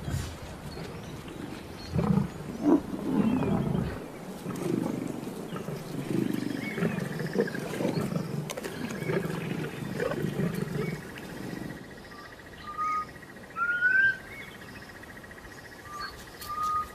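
Lions growling and snarling over a kill in a series of irregular low growls. The growls stop about two-thirds of the way through, and short rising bird whistles follow over a faint steady trill.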